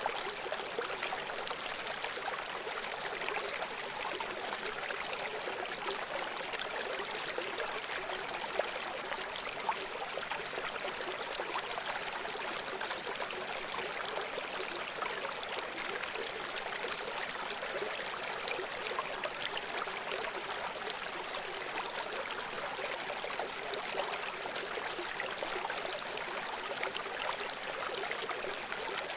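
Running stream: water flowing and splashing over rocks, a steady rushing babble with small trickles and gurgles.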